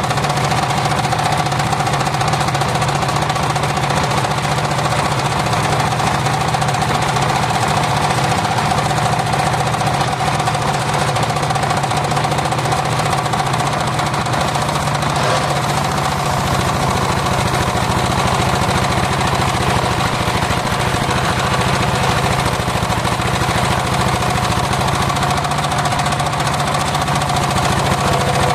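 Homemade engine-driven circular sawmill running steadily while sawing mahogany: the engine chugs under a constant whine from the spinning blade.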